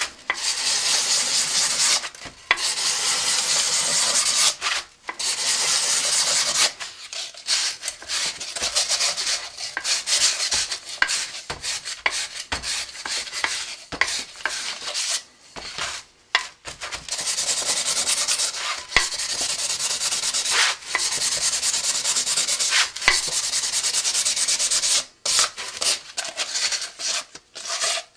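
Hand-sanding a fiberglass rocket coupler tube: sandpaper scuffing back and forth over the outside of the tube in repeated rasping strokes with short pauses, roughing the surface so epoxy will bond.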